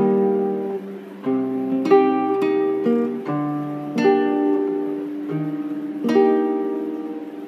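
Background music: an acoustic plucked-string instrument strumming chords that ring out, a fresh strum about every two seconds, fading away near the end.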